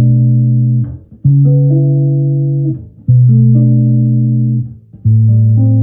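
Birdsong Hy5 bass with D'Addario chrome flatwound strings playing chords through an amp: four chords, each struck, let ring for a second or more and then muted, a new one about every two seconds.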